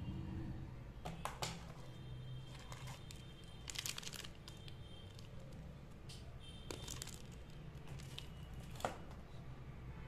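Clear plastic accessory bag crinkling and crackling as it is handled, in scattered bursts with the busiest stretch about four seconds in.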